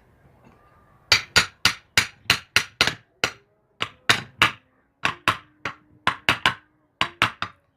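Hammer blows driving a new bearing into place on a washing machine motor: about twenty sharp strikes in quick runs with short pauses, beginning about a second in.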